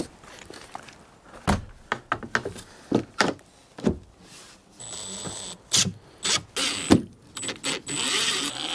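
Several knocks as the wooden trim strip is set against the van's B-pillar, then a cordless drill-driver running in short bursts with a high whine, the last burst longer, driving the trim's screws in.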